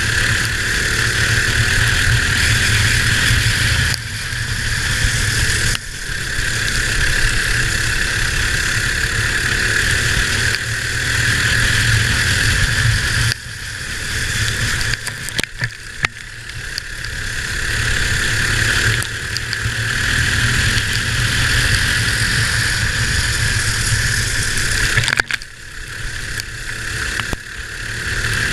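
Kart's single-cylinder Predator 212 four-stroke engine running hard at racing speed. Its sound drops off sharply about five times as the throttle is lifted for the turns, and each time climbs back up as it revs out down the straight.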